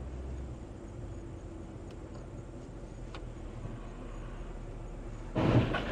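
Low steady hum of a stopped car's interior, as picked up by a dashcam, with a couple of faint ticks. Near the end a much louder, noisy sound sets in suddenly.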